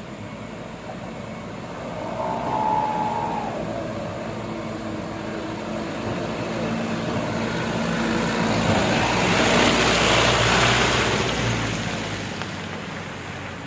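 Hino Dutro truck's diesel engine being run hard under heavy load while the truck is stuck. It builds to its loudest about ten seconds in, then eases off.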